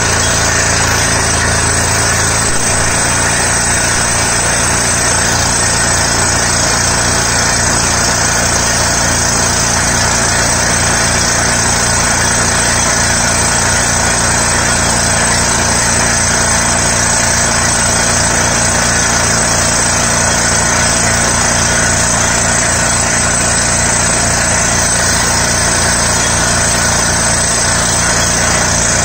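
Truck-mounted borewell drilling rig running under load while drilling: the engine and air compressor run loud and steady, with the rush of compressed air blowing dust and rock cuttings out of the hole. A fast, low, regular pulsing comes in a couple of seconds in.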